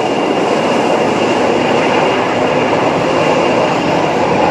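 McDonnell Douglas MD-83's rear-mounted Pratt & Whitney JT8D turbofans running at taxi power: a steady jet roar with a thin high whine above it.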